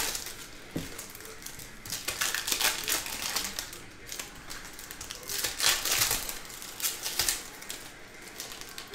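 Foil football-card pack wrappers crinkling and tearing as packs are ripped open and the cards slid out, in a few short crackly bursts.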